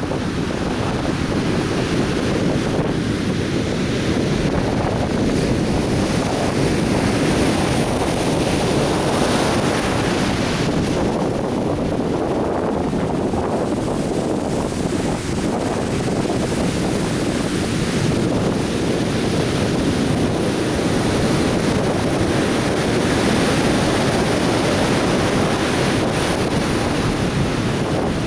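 Atlantic Ocean surf breaking and washing ashore in a continuous, steady rush, with wind buffeting the microphone.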